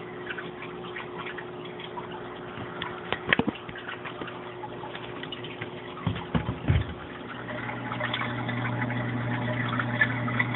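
Rio 2100 submersible return pump in an aquarium sump, a steady buzzing hum that grows louder a little past halfway. Water trickles through the wet-dry filter underneath it, and there are a few knocks around three and six seconds in.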